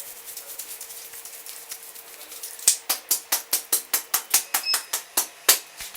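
Indian head massage: faint, quick scratching on the scalp, then from about two and a half seconds in, sharp percussive hand strikes on the head in an even rhythm of about five a second.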